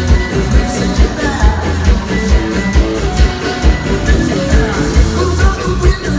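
Live rock band playing at full volume, with a heavy steady drum beat, guitars and singing, heard in a crowd.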